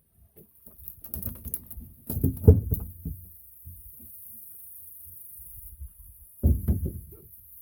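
Two bouts of splashing, rustling and knocking, about two seconds in and again near the end, as a small blue catfish is hauled off the line and into the boat.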